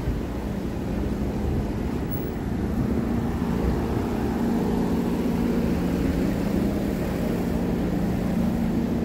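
Miami Metromover's rubber-tyred people-mover car running along its guideway: a steady rolling rumble with a low, even motor hum.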